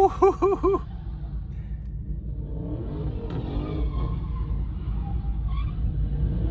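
A car horn gives three quick toots, then the steady low rumble of a car engine and road noise.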